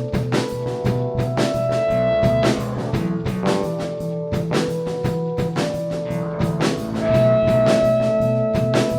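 Rock band playing: guitar over a drum kit keeping a steady beat, with long held notes on top.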